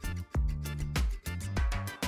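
Background music with a steady beat, drums and bass.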